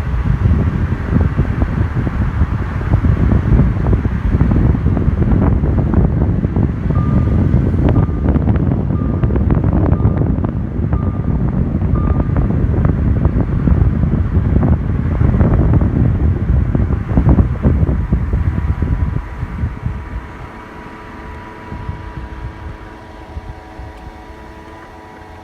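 Audi A4 B8 in motion: heavy road and wind rumble, then quieter, with a steady whine of several tones that falls in pitch near the end as the car slows. A short beep repeats about once a second for several seconds partway through.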